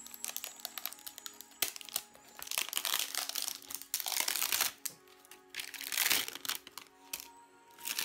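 Plastic wrap crinkling in several long rustling bursts as it is cut and peeled off a Himalayan salt lamp, over background music.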